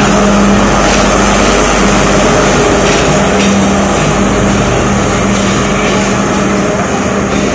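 Sri Lanka Railways Class S12 diesel multiple unit's power car passing close as the train pulls out, its diesel engine running loud and steady with a droning hum over the rumble of the train. The sound eases slightly near the end as the train moves away.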